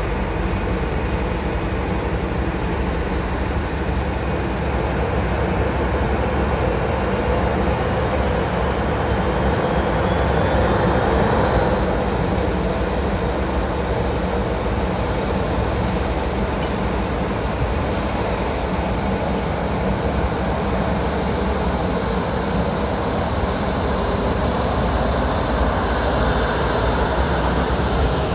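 Boeing 737-800 jet engine noise during pushback: a steady rumble and hiss, with a thin whine that rises in pitch about ten seconds in and then holds steady, typical of a CFM56 engine spooling up as it is started.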